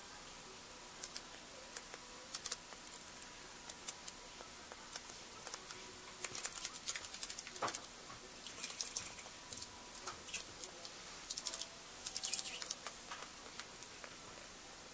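Irregular light clicks and taps, coming in clusters and busiest in the second half: a small pet parakeet pecking and stepping about on the floor among its toys.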